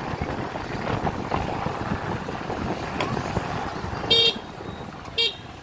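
Two short vehicle horn toots about a second apart near the end, over a steady hubbub of street traffic and crowd.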